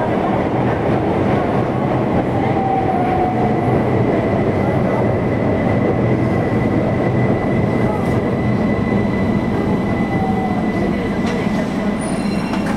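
Keihan 800 series electric train running in the subway tunnel, heard from inside the driver's cab: a steady rumble of wheels and running gear with a faint high steady tone and brief falling whines as it slows into a station. A short high-pitched electronic tone sounds near the end.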